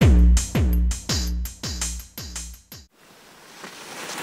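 Electronic intro music: six deep bass drum hits about half a second apart, each dropping in pitch and dying away, each quieter than the last. A rising whoosh swells up near the end.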